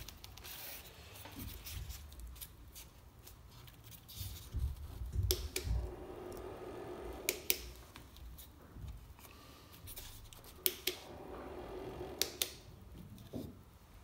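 Handling of a homemade plastic-bottle vacuum cleaner as its parts are fitted together: plastic rubbing and creaking, a dull knock, and several sharp clicks as pieces snap into place and the body is set down.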